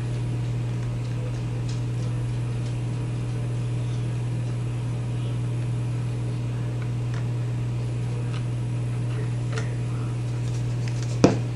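A steady low hum, with faint scattered clicks and taps of hard plastic parts being handled and one sharp knock near the end.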